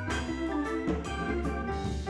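Instrumental background music with a drum beat, held notes and a steady bass line.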